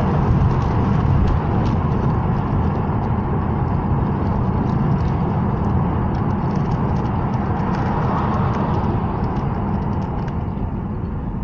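Steady low rumble of engine and tyre noise inside the cabin of a moving car cruising along a main road.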